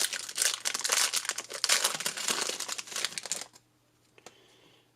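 Trading card pack wrapper being ripped open and crumpled, a dense crinkling that stops about three and a half seconds in.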